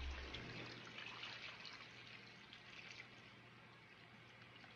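Home-canned chicken stock poured from a quart glass jar into a slow cooker's ceramic crock over chopped vegetables: a faint, steady pouring that grows fainter toward the end.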